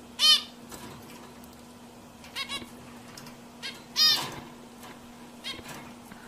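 Zebra finch giving short, loud calls: one near the start and another about four seconds later, with a few softer short calls in between. A steady low hum runs underneath.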